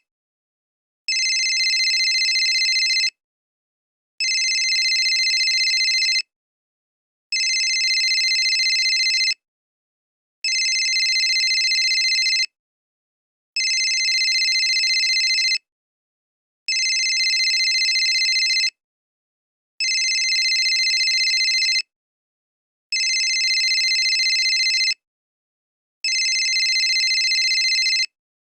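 Old cell phone ringing with an electronic ring tone: about two-second rings separated by about a second of silence, repeating nine times.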